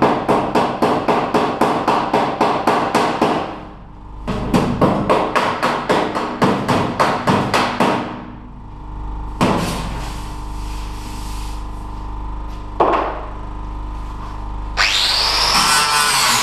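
Hammer blows on a steel John Deere tractor panel, rapid and evenly spaced at about five a second in two runs of three to four seconds, flattening a dented edge around a hole; two single knocks follow. Near the end an angle grinder starts and grinds on the metal to take off the rust.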